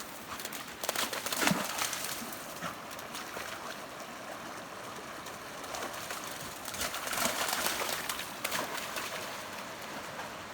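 A puppy splashing and running through a shallow creek over the sound of the flowing water, with bursts of splashing about a second in and again around seven seconds in.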